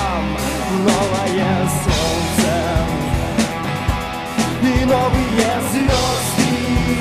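Background rock song with singing and a steady drum beat.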